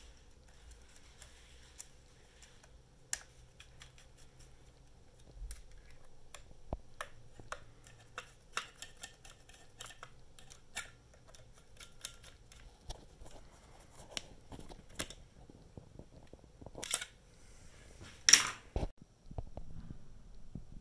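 Small scattered clicks and ticks of a hand screwdriver working small screws in a drone's plastic housing. Near the end come two louder plastic knocks as parts are handled.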